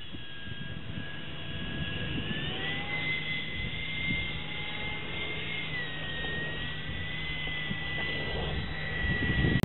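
Electric ducted fan of a foam RC plane whining in flight, a steady high-pitched tone that steps up about two and a half seconds in and dips slightly about halfway through.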